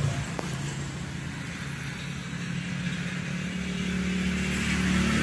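A motor vehicle engine running with a steady low hum that grows louder over the last couple of seconds.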